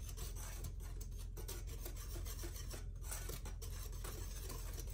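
Wire whisk stirring dry flour and sugar in a glass bowl: a steady scratchy rubbing with small ticks as the wires brush through the powder and against the glass.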